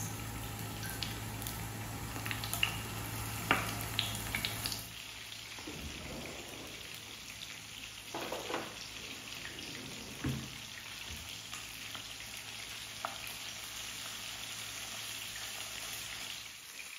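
Marinated chicken pieces sizzling steadily as they shallow-fry in hot coconut oil in a pan, with a few light knocks as pieces are dropped in and moved about.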